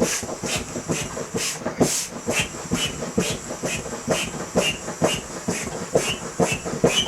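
Air pump being worked in a steady rhythm, about two strokes a second, each stroke a short puff of hissing air as it inflates a condom.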